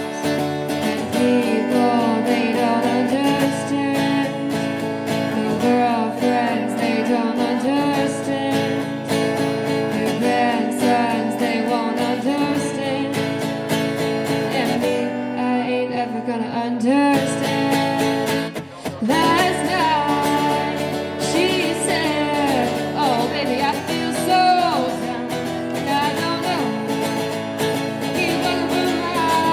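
A woman singing to her own strummed acoustic guitar, a solo live performance; the playing dips briefly about two-thirds of the way through before carrying on.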